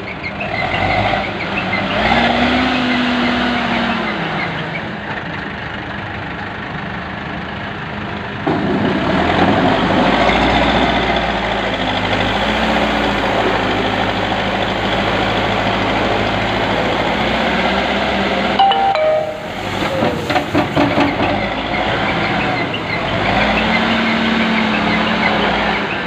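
Backhoe loader's diesel engine running under load as its front bucket works a gravel pile. The engine revs up and back down twice, once near the start and once near the end. It gets louder about a third of the way in, and a quick run of knocks comes about three-quarters of the way through.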